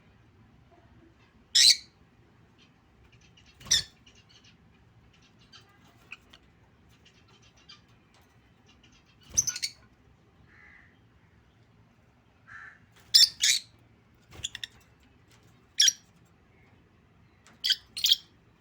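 Lutino peach-faced lovebird calls: short, shrill squawks every few seconds, some in quick pairs, about nine in all, with faint soft chatter between.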